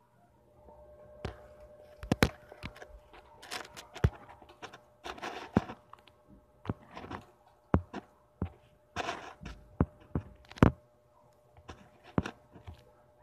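Irregular sharp knocks and thuds, about a dozen, with a few short bursts of rustling and a faint steady hum underneath.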